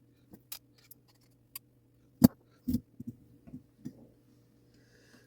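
Small metal clock-movement parts and tools clicking and knocking as they are handled, a scatter of light clicks with one sharper knock a little past two seconds in and several softer ones after it, over a faint steady hum.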